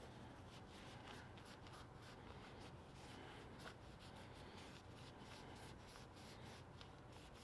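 Faint rustling and rubbing of a cloth shop rag as a small fork spacer is wiped clean by hand, in many short, soft strokes.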